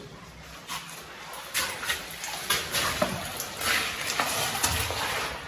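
Water in a shallow cave stream, splashing irregularly with a few sharp knocks. The splashes grow stronger from about a second and a half in.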